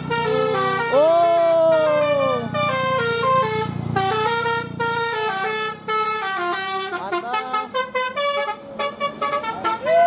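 Tour bus's telolet basuri musical horn playing a tune: a run of stepped notes with an arching sliding tone about a second in, then a quick stutter of short notes in the last few seconds.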